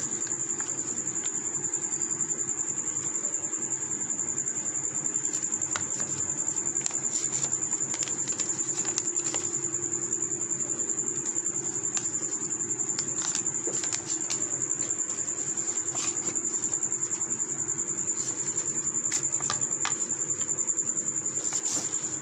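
A steady high-pitched trill pulsing quickly and evenly, with scattered light clicks and crinkles of the paper backing as silver varq leaf is pressed onto laddoos.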